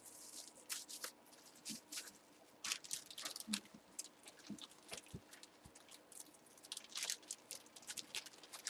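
Plastic packaging crinkling and rustling as it is handled, in scattered short crackles with a few light taps.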